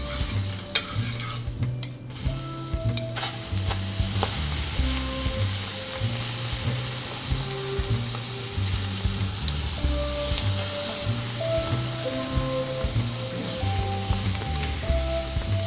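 Scallops frying in butter in a hot enamelled cast-iron skillet: a steady sizzling hiss that grows stronger about three seconds in.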